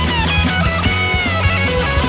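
Rock band playing an instrumental passage: an electric lead guitar plays sustained, bending notes with vibrato over bass and a steady drum beat.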